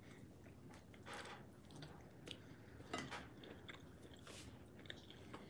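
Near silence: room tone with a few faint clicks and soft puffs of noise.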